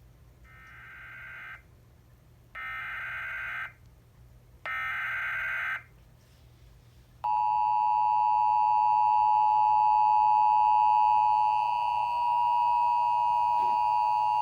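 Emergency Alert System tones: three bursts of SAME header data, each a harsh digital warble lasting about a second, then the steady two-tone EAS attention signal from about seven seconds in. Together they mark the start of a National Weather Service flood warning.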